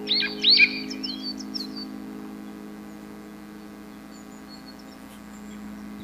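A sustained piano chord slowly dying away, with small songbirds chirping over it, most busily in the first second and a half.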